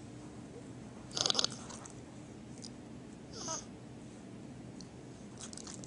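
Pet mini pig chewing: a short run of crisp crunches about a second in, a brief squeak a couple of seconds later, and a few faint clicks near the end.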